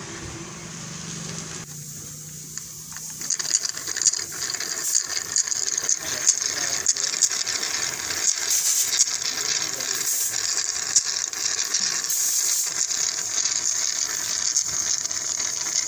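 Compressor oil and air being sucked from a cup up a charging hose into a Maruti Ertiga's evacuated AC system: a crackling, sputtering hiss that sets in suddenly about three seconds in as the manifold valve is eased open, and keeps on. A low steady hum is heard before it.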